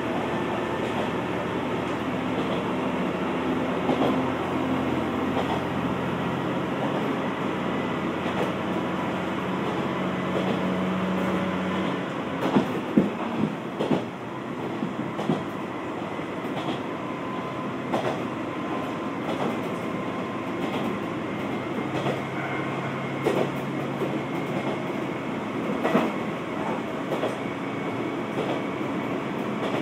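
Interior running sound of a Kanto Railway KiHa 2200 diesel railcar under way: its diesel engine hums steadily under power and eases off about twelve seconds in. Sharp clacks of the wheels over rail joints come now and then.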